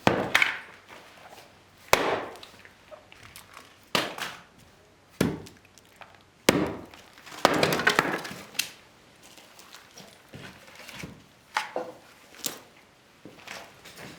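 An axe chopping firewood: a sharp wooden chop every second or two, some followed by a short clatter.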